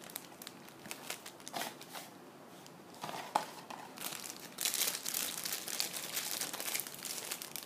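Thin clear plastic packaging bags crinkling as they are handled and pulled open. There are a few light rustles and clicks at first, then dense crinkling from about three seconds in that gets busier toward the end.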